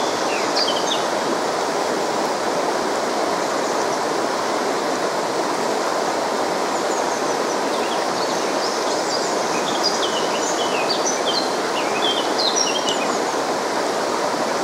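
A river runs fast over a stony bed as a steady, even rush of water. Small birds chirp briefly and repeatedly over it, mostly in the second half.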